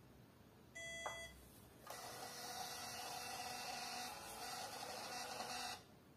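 Portable 58 mm Bluetooth thermal receipt printer giving one short beep with a click, then printing its self-test page: a steady printing noise for about four seconds that cuts off abruptly.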